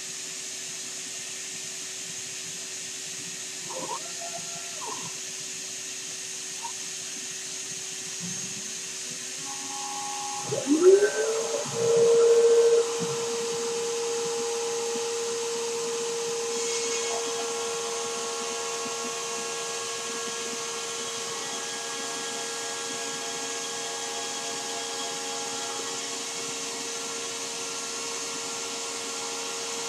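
The 2.2 kW spindle of a CNC 6040 router spins up about ten seconds in, ramped by its Huanyang VFD: a whine that rises in pitch and settles into a steady tone. It runs over the steady rush of the vacuum table's vacuum, and from a few seconds later more steady tones join as the machine runs its job.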